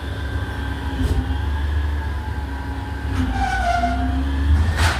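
Garbage truck's diesel engine running close by with a steady low rumble, and a short whine about three seconds in.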